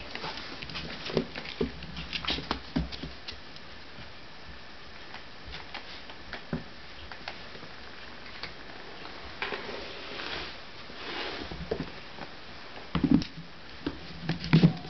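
Light, scattered clicks and scuffles of a border terrier puppy's and an older terrier's paws and claws on a sisal rug and a wooden floor as they play. Two louder bumps come near the end.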